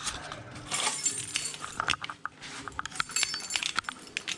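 Small metal objects clinking and rattling in a run of light clicks, with a brief high metallic jingle about three seconds in.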